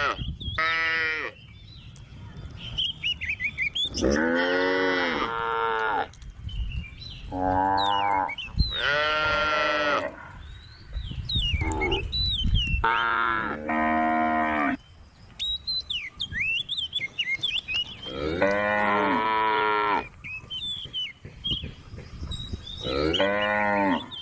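Cows mooing, a long drawn-out call every few seconds, some calls coming in quick pairs.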